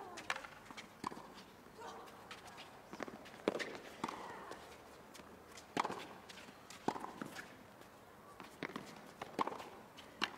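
Tennis rally on a hard court: sharp racket strikes on the ball and ball bounces, irregularly spaced about a second apart, over a quiet crowd.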